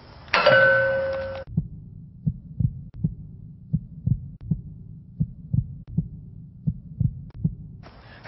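A sudden ringing hit with two held tones that cuts off after about a second, then a muffled heartbeat sound effect: slow, regular low thumps.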